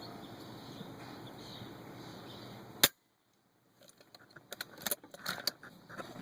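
A single sharp shot from an FX Impact Mk1 .177 PCP air rifle about three seconds in, heard over steady wind noise. The sound then cuts out for under a second, and scattered light clicks and knocks follow.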